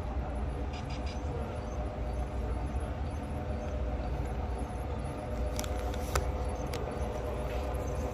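Model train running along the layout track toward the listener: a steady mechanical hum and rumble, with a few sharp metallic clicks from the wheels on the track in the second half.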